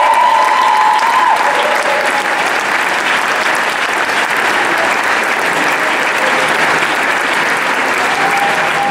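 Audience clapping steadily. A held final musical note stops about a second in.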